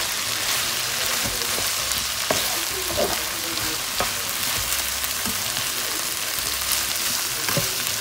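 Green beans, ground beef, bell pepper and onion sizzling in a hot nonstick wok, with a steady frying hiss. A spatula stirs the food, giving irregular knocks and scrapes against the pan every second or so.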